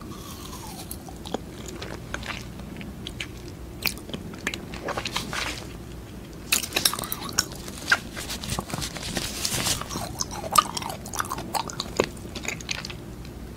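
Close-miked mouth sounds of biting into and eating a strawberry yogurt jelly stick: a string of sharp clicks and wet smacks, growing busier about halfway through.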